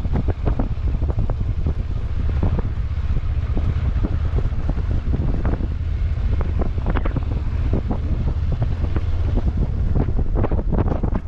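Wind buffeting the microphone of a vehicle driving off-road, over a steady low rumble with frequent short knocks and rattles.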